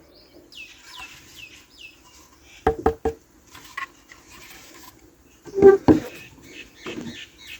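Small plastic toy parts being handled and fitted together: short squeaky rubs, three quick clicks about two and a half seconds in, and a few knocks around six seconds.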